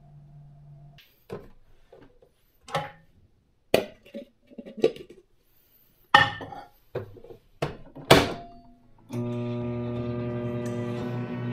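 Scattered knocks and clunks of a countertop microwave being worked: its door opened and shut and its dial knobs turned. Background music starts near the end.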